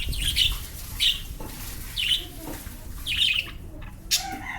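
Pet lovebirds calling in short, sharp squawks, about one a second, over a low rumble. A sharp click comes near the end.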